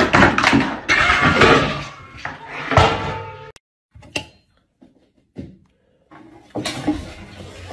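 Thumps and scuffling as two cats tussle, several loud knocks in quick succession, cutting off abruptly about three and a half seconds in. After that, only a few faint taps and clicks.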